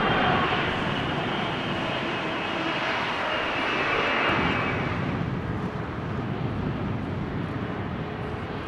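Twin-engine jet airliner's turbofan engines at takeoff power as the airliner rolls down the runway and lifts off: a loud jet noise with a high fan whine that fades out about four and a half seconds in, leaving a lower rumble that slowly dies away.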